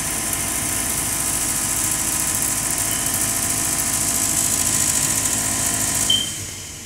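Gas furnace's draft inducer fan running with a steady motor hum and airy hiss, then cutting off about six seconds in just after a short high chirp. This is the furnace shutting down after its main burners failed to light.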